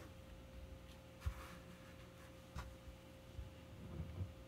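Faint handling noises: a few soft knocks and a brief rustle of cotton gloves as an HO-scale model locomotive is shifted about on a cutting mat, over a steady faint hum.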